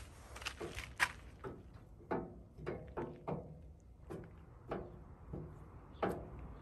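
Footsteps on a concrete path, a step about every half second to second.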